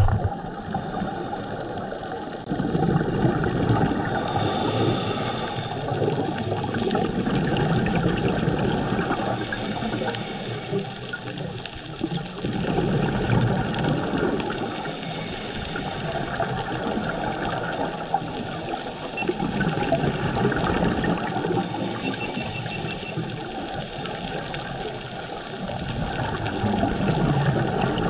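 Scuba regulator bubbles recorded underwater: bursts of exhaled bubbles gurgling and rumbling that swell and fade every several seconds, like a diver's slow breathing, over a steady watery hiss.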